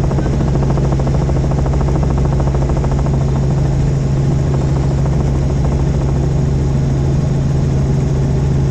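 Helicopter in steady flight: a constant low drone of engine and rotor with a rapid, even chop of the rotor blades.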